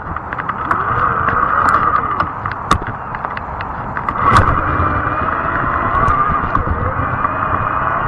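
Fat-tire e-bike riding on pavement: a steady whine from the motor and tyres, with frequent sharp clicks and rattles from bumps and a louder knock about four seconds in.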